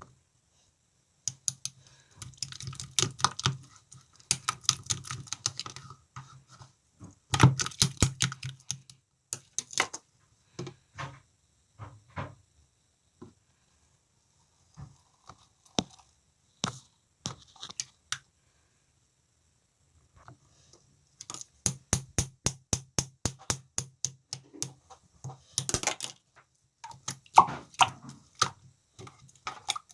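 Slime being squeezed and pressed by hand, giving runs of quick sharp clicks and pops, in several bursts with quiet stretches between.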